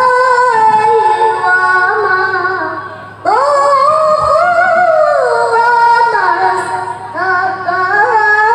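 A boy's high voice reciting the Quran in the melodic tilawah style into a microphone over loudspeakers, holding long ornamented notes that slide between pitches. He stops for breath about three seconds in and starts a new phrase, with another short break near the end.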